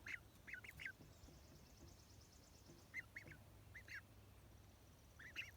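Ducklings peeping faintly in short quick clusters of high calls, the nervous peeping of young ducks upset by a person close by.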